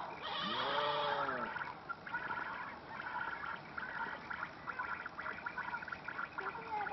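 An animal's drawn-out call, rising then falling in pitch, about half a second in, followed by scattered faint chirping.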